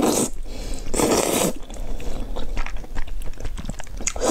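Mouthfuls of thick black bean sauce noodles (zhajiangmian) slurped up, once at the start and again for about half a second a second in, then chewed with many short wet clicks and smacks. Another slurp begins near the end.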